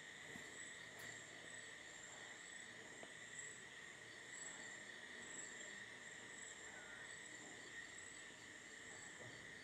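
Near silence: a faint steady high-pitched tone with a soft, regular pulsing above it.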